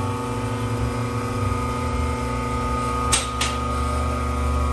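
A steady mechanical hum of several held pitches, with two sharp metallic clanks from tools about three seconds in.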